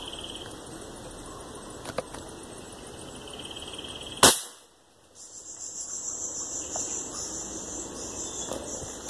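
A single shot from a .22 PCP air rifle, charged by foot pump, firing a Parco pellet: one sharp crack about four seconds in.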